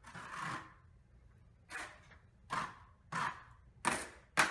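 Metal drywall taping knife swiped against a textured ceiling, spreading and blending joint compound for a skip-trowel texture match, in a series of short scraping strokes.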